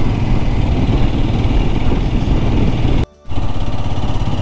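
Motorcycle engine running steadily on the move, under a constant rush of wind noise. The sound drops out suddenly for a fraction of a second about three seconds in.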